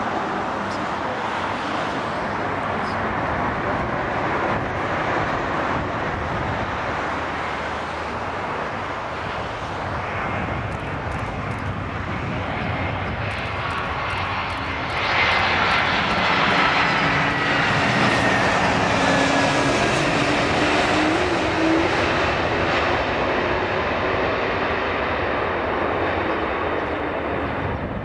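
Airbus A319 jet airliner's engines running steadily on final approach and touchdown. Just after touchdown, about halfway through, the sound abruptly gets louder and a whine slowly falls in pitch as the engines spool up, typical of reverse thrust on the landing roll.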